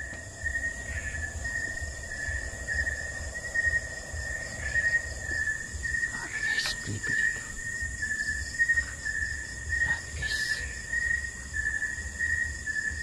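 Night insects: one chirping in a steady, rhythmic run of short high chirps over a continuous high-pitched buzz. A few soft knocks and a low rumble from someone moving about also come through.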